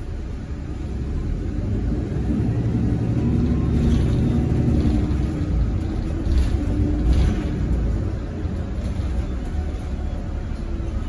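Cabin noise inside a 2018 Nova Bus LFS hybrid-electric bus with a Cummins B6.7 diesel and BAE HybriDrive: a low rumble that grows louder over the first few seconds and eases off about eight seconds in. A few short rattles or knocks come in the middle.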